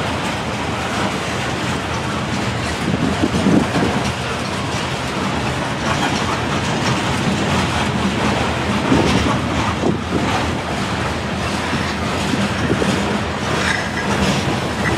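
Freight train of covered grain hopper cars rolling past: a steady rumble of steel wheels on rail, with occasional clacks as wheels cross rail joints.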